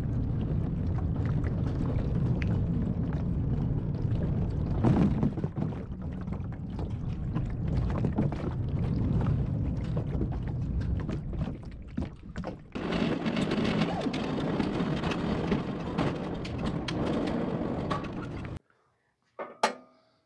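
Tractor engine running while it drives with a caged IBC tote on its front forks, with many knocks and rattles and wind on the microphone. Near the end it stops suddenly, giving way to near silence and a single sharp knock.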